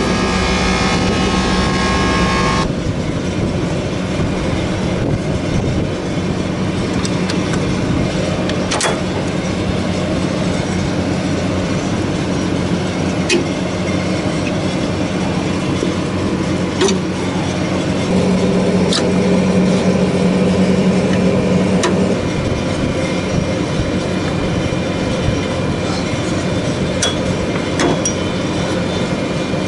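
Core cowl latches on a GE90-90B engine being released by hand, giving sharp metallic clicks every few seconds. Behind them runs a steady low mechanical hum.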